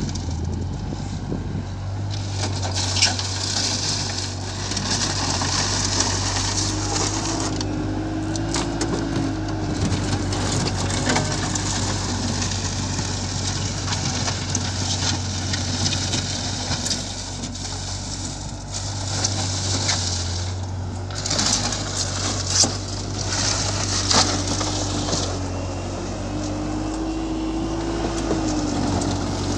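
Bobcat skid-steer loader's engine running steadily, with crunching and scraping of material and a faint tone that wavers up and down twice.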